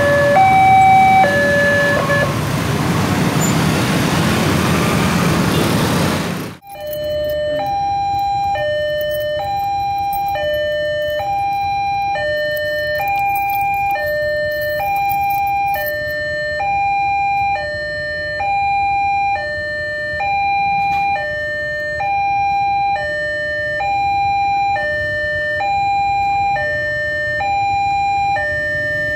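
Railway level-crossing warning alarm, an electronic two-tone signal alternating steadily between a higher and a lower tone, each held about half a second. For the first six seconds or so a train's rumble runs loudly under it; then it cuts off abruptly and the alarm continues alone.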